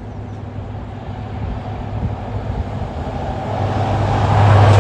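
A Class 43 HST power car's MTU diesel engine approaches at speed with a steady low drone. Together with wheel and rail noise it grows steadily louder, peaking near the end as the power car draws level.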